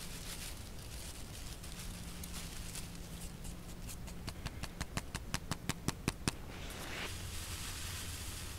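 Dry grass tinder bundle crackling as it is handled around an ember, a quick run of sharp crackles speeding up and then stopping. After that comes a breathy rush as air is blown into the smoking bundle to bring the ember to flame.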